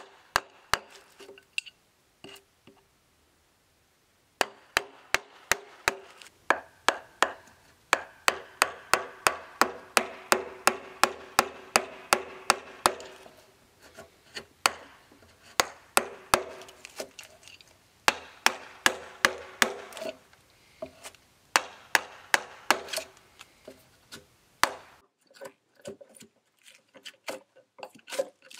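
Wooden mallet driving a chisel again and again, chopping out a dovetail groove along a timber floor joist, with the wood cracking as chips come free. About two sharp blows a second, each with a short ring, a pause near the start, and lighter, quicker taps near the end.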